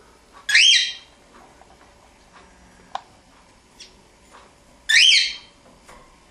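Cockatiel giving two loud, whistled calls about four seconds apart, each a short upward-gliding note, with a single sharp click between them.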